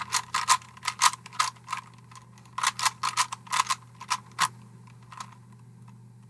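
Plastic Rubik's Cube being turned by hand: quick flurries of sharp clicking and clacking as the layers snap round. There are two runs of clicks with a short pause between them, then a single click, and little after that.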